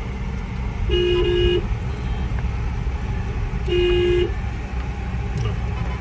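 Vehicle horn honking twice, each blast about half a second long and about three seconds apart, over the steady low rumble of a car running in slow traffic.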